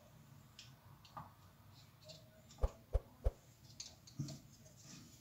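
Plastic popsicle stick-lids being pushed into a plastic ice-lolly mould tray: light plastic clicks and taps, with three sharper knocks in quick succession near the middle.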